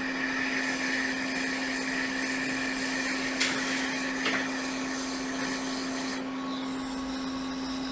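Steady fan and blowing-air noise from bench soldering equipment, with a constant hum and a high whine that fades out a little past the middle, and two short clicks around the middle.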